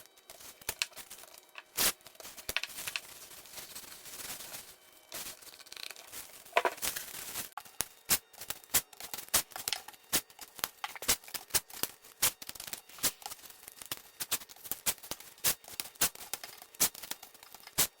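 Tape being pulled off a roll, torn and pressed down, with rustling and many irregular sharp crackles and ticks.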